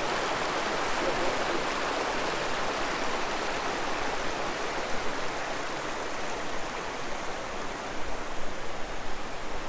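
The outlet creek of an alpine lake, its water rushing steadily over rocks.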